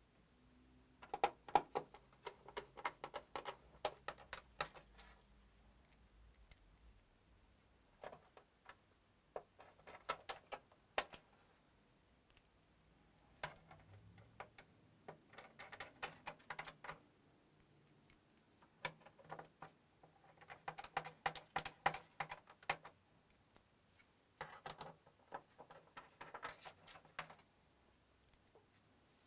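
Screws being driven into a PS4's case: about six runs of rapid, light clicking and rattling, each a few seconds long, some with a faint low hum beneath.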